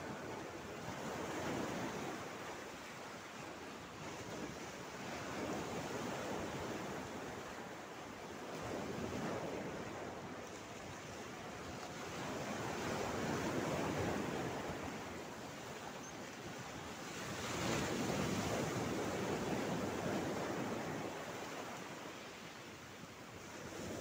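Small sea waves breaking and washing over a shallow rocky shore, the rush of water swelling and fading every few seconds, with a longer, louder wash about three quarters of the way through.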